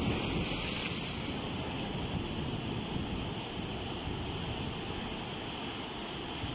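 Heavy sea surf breaking and churning over shoreline rocks: a steady rush of water, slightly louder in the first second.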